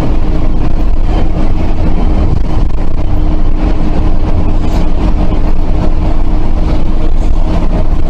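Intercity bus's diesel engine running steadily under way, a loud low rumble with a steady hum, heard from inside the cabin along with road noise.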